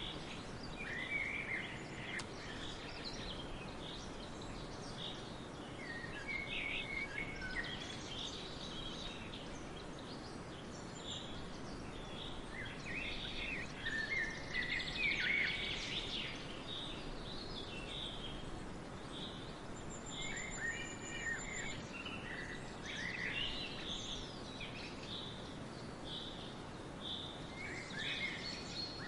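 Songbirds singing, with short chirps and trills scattered through, some overlapping, over a steady faint background hiss.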